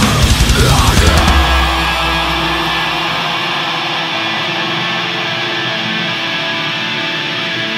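Heavy metal music: pounding drums and distorted guitar for about a second and a half, then a single guitar chord held and left ringing as the bass fades out.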